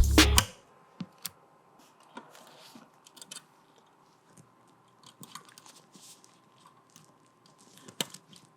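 Background music cuts off half a second in, leaving faint, scattered small clicks and rustles, with a sharper click about eight seconds in.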